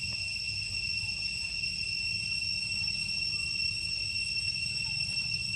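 Insects droning in a steady, high-pitched whine, over a low rumble.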